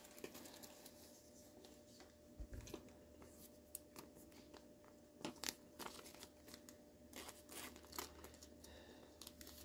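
Faint rustling and scattered small clicks of trading cards and a torn foil card-pack wrapper being handled, over a steady faint hum.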